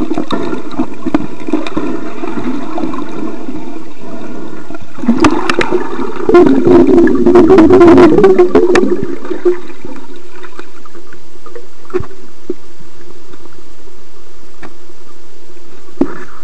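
Muffled water noise heard underwater through the camcorder's sealed plastic case, swelling into louder rushing and gurgling about five seconds in, with a few sharp knocks later on.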